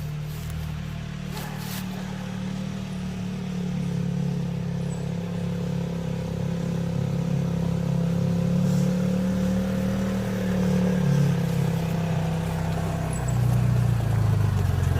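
ATV engine running and drawing closer, growing steadily louder, its note stepping down twice near the end.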